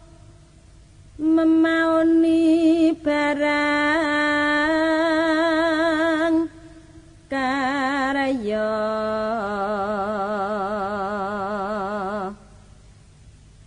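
A solo voice singing a slow, unaccompanied Javanese sung verse in long, drawn-out notes with a wavering vibrato. There are two long phrases, each with short gaps of near quiet around it.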